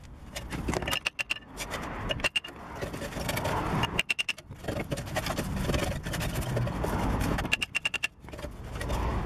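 Rusted rear brake disc of a BMW E46 being twisted and pulled off its hub by hand: metal scraping and rubbing, with a few short runs of quick metallic clicks.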